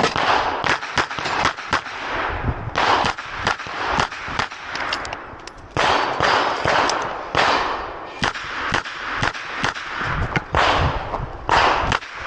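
Smith & Wesson 929 9mm revolver firing a long string of shots in a timed competition stage, one shot every half second to a second.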